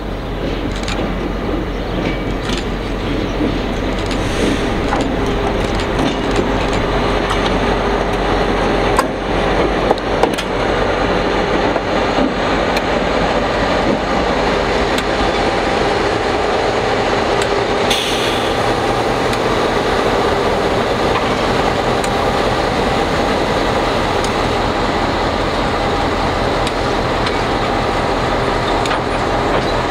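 Diesel-electric locomotives DC 4818 and DBR 1254 with a support carriage passing slowly close by: a steady diesel engine and wheel rumble that grows louder over the first few seconds, with a few sharp clicks along the way.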